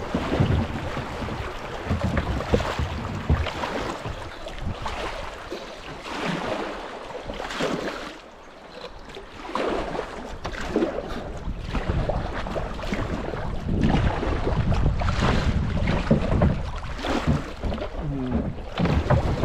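Kayak paddle strokes dipping and splashing in a shallow creek, with water running around the hull. There are repeated splashes, and a quieter lull about eight seconds in.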